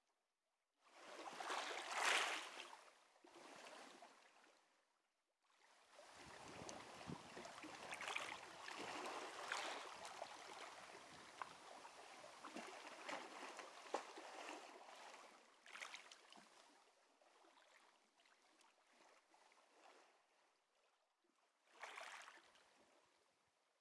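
Small waves of a calm sea washing in and out over a pebble beach and around rocks, with small clicks of pebbles in the longest wash. Faint, rising and falling in several surges, the loudest about two seconds in and a last short one near the end.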